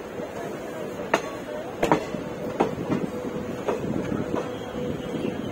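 ICF passenger coach running at speed on the rails: a steady rumble broken by irregular sharp clacks and knocks from the wheels and running gear, about one a second.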